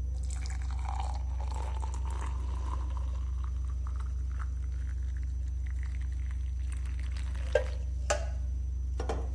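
Hot chocolate poured into a glass tumbler: a steady liquid pour lasting about seven seconds as the glass fills and foams, then a couple of light knocks. A steady low hum runs underneath throughout.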